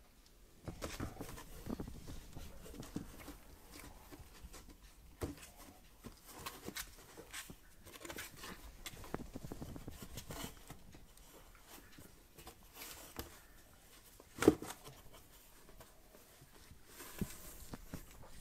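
Kittens scrambling in and against a cardboard box: irregular scratching, rustling and light knocks of paws and bodies on cardboard, with paws pattering. One sharp, loud knock about three-quarters of the way through.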